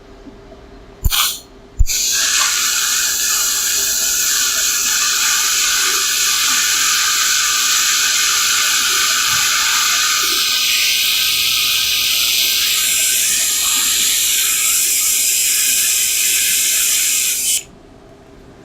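TIG welding arc from an AHP AlphaTIG 200x: a brief burst about a second in, then the arc strikes and runs as a loud, steady, high-pitched hiss for about sixteen seconds before cutting off suddenly. It is a beginner's bead that the welder thinks is going wrong.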